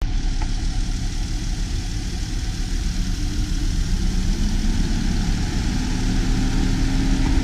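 Ram ProMaster 3500 cargo van engine idling steadily, with the hood open.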